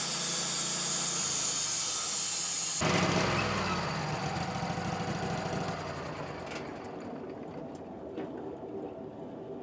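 Wood-Mizer LT-15 portable sawmill running, its band blade cutting through a spruce log with a loud steady hiss over the engine. The cutting hiss stops abruptly about three seconds in, then the engine and blade wind down, growing steadily quieter.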